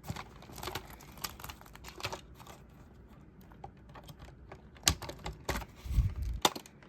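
Scattered plastic clicks and taps as the body shell is taken off a Traxxas TRX-4M RC crawler, with a cluster of louder clicks and a dull knock near the end.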